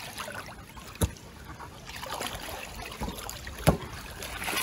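Pool water splashing and lapping around a player shooting basketballs, with three sharp smacks from the balls, the loudest about three and a half seconds in.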